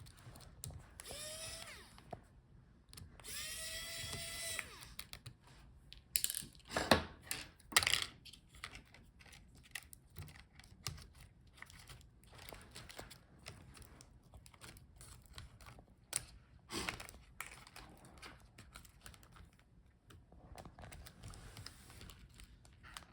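Two short whirs of a small electric screwdriver spinning up and holding speed, followed by small clicks and a few sharp knocks of laptop parts being handled as the motherboard is freed.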